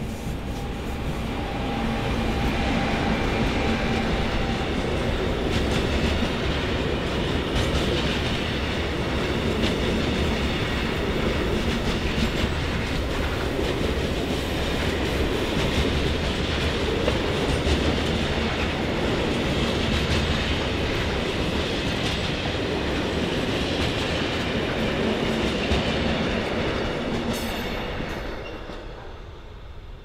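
Long container train of loaded flat wagons, hauled by a Siemens Vectron electric locomotive, rolling past at speed with wheels clattering over the rail joints. The rumble builds over the first couple of seconds, holds steady, and fades away about three seconds before the end as the last wagon passes.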